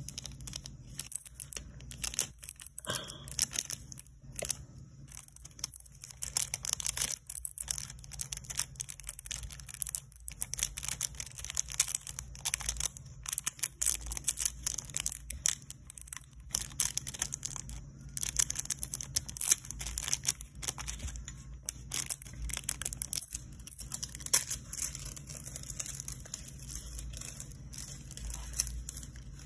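Snakeskin nail-art transfer foil crinkling and rustling in many irregular little crackles as fingers press and rub it onto a fingernail.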